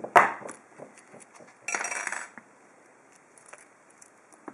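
Metal key on a split keyring clinking as it is picked up and handled. There is a sharp clink at the start, a short jingle about two seconds in, then a few light ticks.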